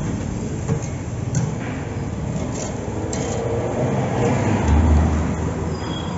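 Steady road traffic noise, with a heavier vehicle engine rumbling louder about five seconds in and a few short light clicks.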